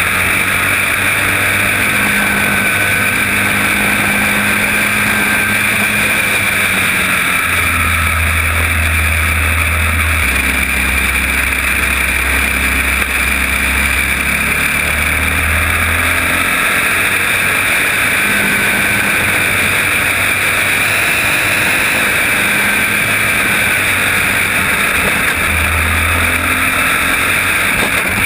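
Engine of a caged champ racing kart running hard at race pace, its pitch dropping and climbing every few seconds through the corners, with other karts' engines close by. Heard from a helmet-mounted camera over a steady, noisy rush.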